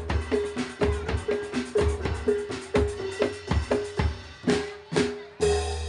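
Live jaran dor ensemble music: drums played in a steady beat of about two strokes a second, each stroke carrying a short pitched note, with a loud crash and deep bass hit near the end.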